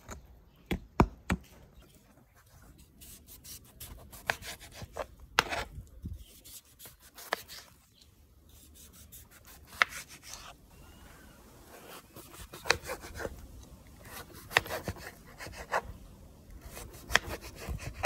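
A knife cutting unripe papaya on a plastic cutting board: irregular sharp knocks of the blade against the board, with scraping and rubbing between them.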